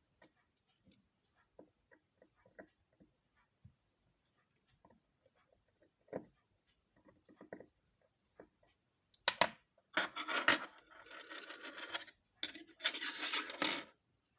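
Light clicks of small tools and watch parts during watch disassembly, then two stretches of scraping and rubbing, a few seconds each, near the end.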